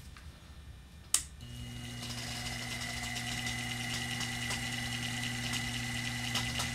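A click about a second in as a small bench motor switches on. The motor then runs steadily, spinning a lathe chuck and a kinked wiggle rod inside an oboe key's hinge tubing, with faint ticking over the hum. The spinning is meant to straighten and slightly expand the tubing.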